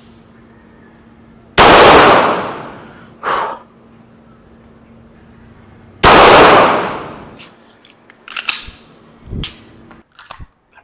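Two shots from a System Defense C9 9mm striker-fired pistol, about four and a half seconds apart, each ringing off for about a second. A few small clicks and knocks follow near the end.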